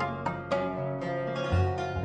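Background music of quick plucked string notes over a low bass line.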